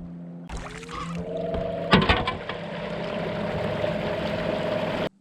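Kayak's drive getting underway: a whine that rises in pitch for about a second and then holds steady, over rushing water, with a sharp knock about two seconds in. It cuts off abruptly just before the end.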